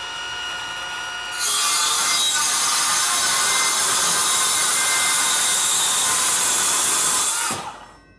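Hilti SC 6ML cordless metal circular saw with an X-Cut Thin blade, cutting thin stainless steel sheet. The motor runs free with a whine, then about a second and a half in the blade bites into the steel with a loud, harsh cutting noise that holds for about six seconds. The noise stops near the end as the cut finishes and the motor winds down.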